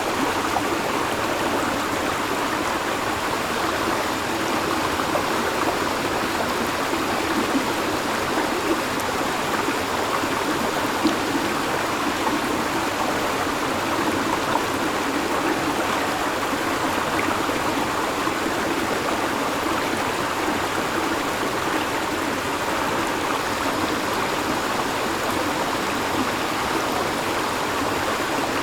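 A river flowing steadily, a constant rush of running water with a few slightly louder splashes now and then.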